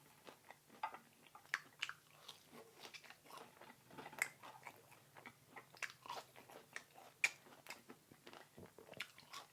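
Close-miked eating: a person chewing and biting food, with irregular sharp mouth clicks and smacks several times a second.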